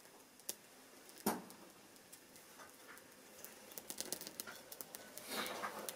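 Wood shavings and kindling catching fire and crackling faintly. Two sharp snaps come in the first second and a half, then the small crackles come quicker and busier toward the end.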